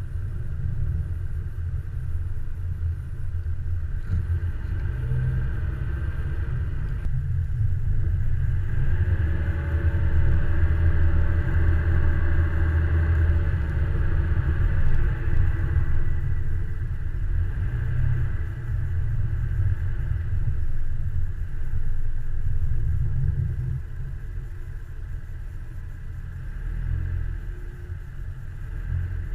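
A car driving on a packed-snow road: a steady low rumble of engine and tyres. The engine note builds and grows louder midway, then eases off, and the sound drops near the end as the car slows.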